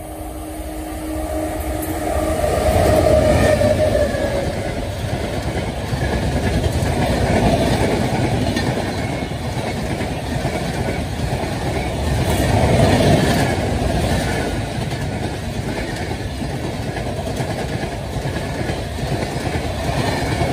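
Express train of LHB coaches behind an electric locomotive passing close by at speed. A steady hum and a rising rush come in the first few seconds as the locomotive arrives. The coaches' wheels then rumble and clack on the track, swelling and easing as the rake runs past.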